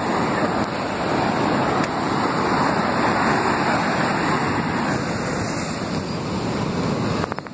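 Shallow surf washing up over wet sand around bare feet: a steady, fairly loud rushing that drops off just before the end.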